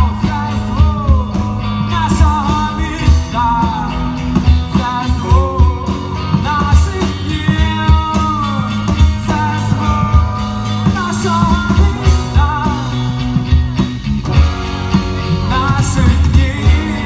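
Live rock band playing: drum kit and electric guitars with singing over them.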